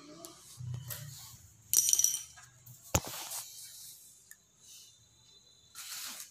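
Handling noise from a phone being moved and repositioned over a sheet of paper: a brief rustle about two seconds in, one sharp click about a second later, and another short rustle near the end.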